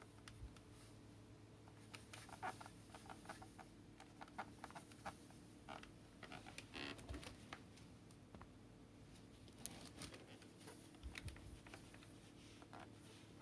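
Faint, irregular taps, clicks and light scrapes of things being handled by hand, over a low steady hum.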